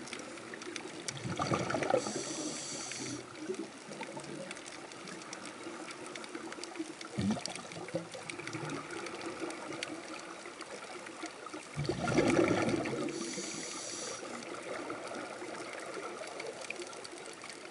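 Scuba diver breathing underwater through a regulator, over a steady underwater wash. Twice, about ten seconds apart, a rush of burbling exhaled bubbles is followed by a high hiss from the regulator.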